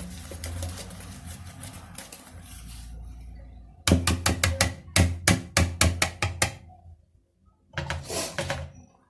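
Electric hand mixer running steadily in cake batter, switched off about three seconds in. Then a rapid run of sharp knocks, several a second for about two and a half seconds, and a brief noisy sound near the end.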